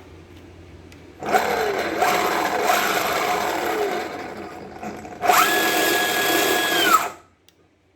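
DIY electric skateboard's motor drive spun up twice by remote throttle, motor and drive train whirring and whining. The second run has a steady whine that rises quickly, holds, then drops away as the throttle is released.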